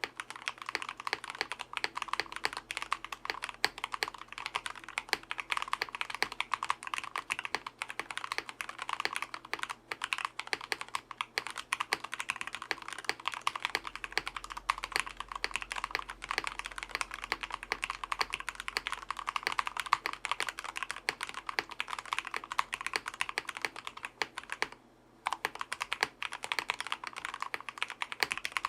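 Steady fast typing on an RK61 60% mechanical keyboard with Krytox-lubed Outemu Red linear switches, lubed stock stabilizers, a PE foam layer and a tape mod, giving a dense run of keystroke clacks. There is one short break near the end.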